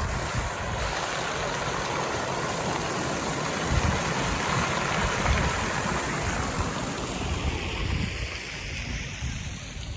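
Steady rushing outdoor noise with irregular low gusts of wind buffeting the microphone, easing off near the end.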